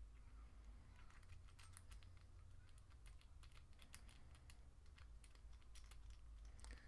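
Faint, irregular metallic clicking and scraping of a lock pick working the pins inside a padlock. The rough-edged dog-tag pick scrapes as it moves in and out.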